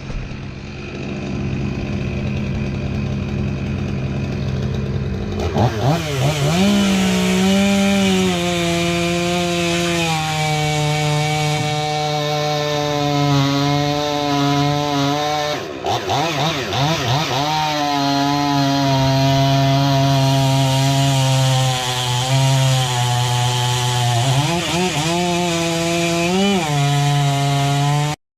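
Gas chainsaw running. Its engine is revved up and down a few times and held at high revs in long stretches, as when cutting through wood. The sound stops abruptly near the end.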